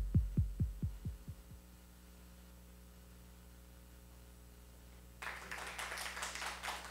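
An electronic music piece ends: a deep synthesized bass pulse, each beat dropping in pitch, repeats about four times a second and fades out over the first second and a half, leaving a faint low hum. About five seconds in, audience clapping and chatter start suddenly.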